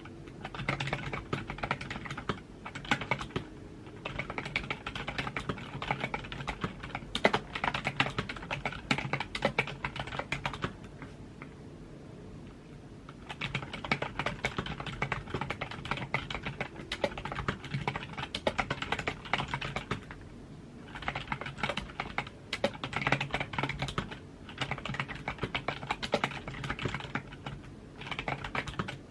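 Computer keyboard being typed on: fast runs of key clicks in spells of several seconds, broken by short pauses and one longer pause near the middle.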